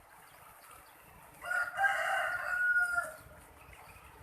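A rooster crowing once: a single call of about a second and a half, starting about a second and a half in.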